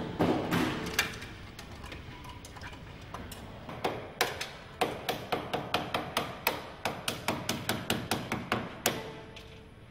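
Sharp light hammer taps on a car's door frame, settling into an even run of about three a second. A few louder knocks and clatter come in the first second.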